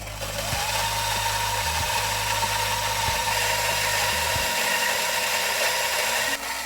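Gevi VelPro 400 flat burr coffee grinder starting up and grinding a dose of espresso beans: a steady motor hum with a high steady tone over the grinding noise. The sound drops sharply near the end, as the beans run out and the grinder keeps running until it is switched off.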